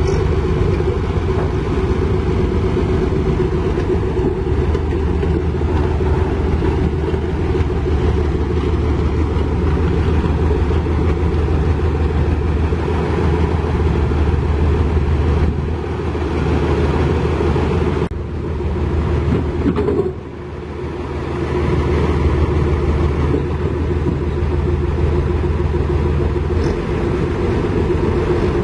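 Heavy diesel engine of construction equipment running steadily with a low hum. It eases off briefly about two-thirds of the way through, then picks up again.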